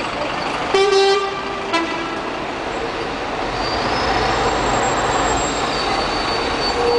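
City street traffic: a steady mix of bus and car engines and tyres, with a vehicle horn honking briefly about a second in and a shorter toot just after. A held high tone comes in near the end.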